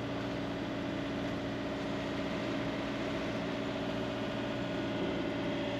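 Sailboat's inboard engine running steadily under way, an even drone with a constant hum.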